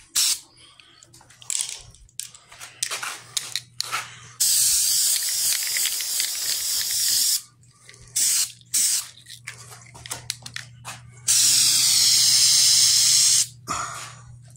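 Aerosol can of Herculiner bed liner spraying in bursts: a few short spurts, then a hiss of about three seconds, more short spurts, and another hiss of about two seconds near the end. A steady low hum runs beneath.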